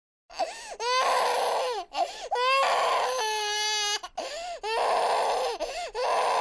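Infant crying: a run of loud cries, each rising and falling in pitch, with short catches of breath between them. It starts abruptly out of silence, as a sound-effect clip.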